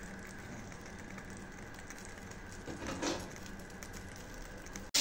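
Cooking oil heating in a frying pan, giving a faint steady hiss with small scattered crackles over a low background hum, and one short louder swell about three seconds in.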